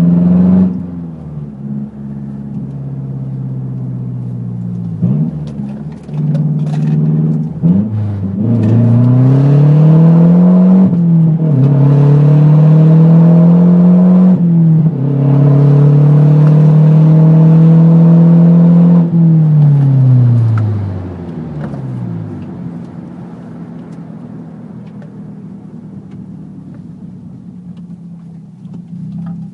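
Mazdaspeed 3's turbocharged 2.3-litre four-cylinder running through an open downpipe with no resonator or mufflers: idling, a few short blips, then revved up and held twice for several seconds each, dropping back to idle about 21 seconds in.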